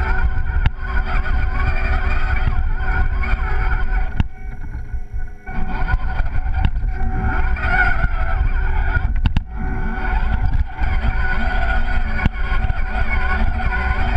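Electric motor and geared drivetrain of an RC scale crawler truck whining at a steady pitch, over a low rumble, heard from a camera mounted on the truck. Occasional knocks as the chassis bumps over the snow. The sound drops away briefly twice, once a few seconds in and once past the middle, as the truck slows.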